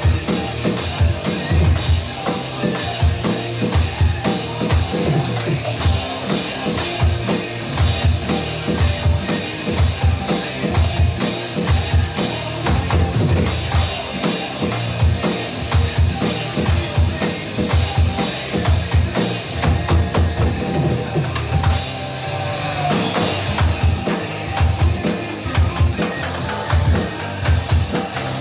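Electronic drum kit played along with a hard-rock song: a driving kick and snare beat with cymbals over the full band. The song changes section about three-quarters of the way through.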